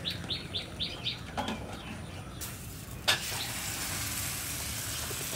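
A bird chirps in a quick repeated series, about five calls a second, stopping about a second in. About two and a half seconds in, chickpea-flour batter poured onto a ghee-greased tava starts to sizzle steadily, with a single sharp knock just after.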